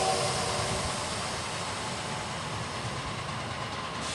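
The steam whistle of Shay #7, a geared steam locomotive, dies away within the first second, leaving a steady hiss and rumble from the locomotive standing at idle.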